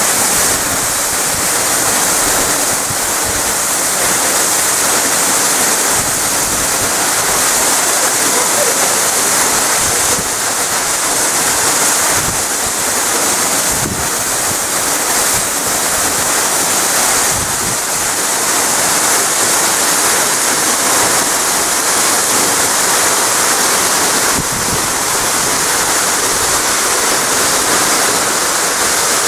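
A tall waterfall plunging into its pool: a loud, steady roar of falling water and spray.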